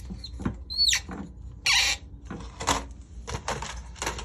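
Toilet water-supply shutoff valve being turned closed: a couple of short high squeaks, one gliding upward, then a brief rushing noise and a few knocks.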